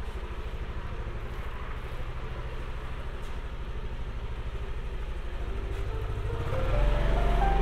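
Steady low rumble of a motorbike on the move. About six seconds in, background music with a simple stepped melody comes in over it.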